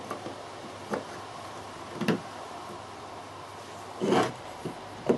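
Wooden parts of a book stand knocking and shifting on a wooden workbench: a handful of separate dull knocks about a second apart, with the loudest and longest near the end.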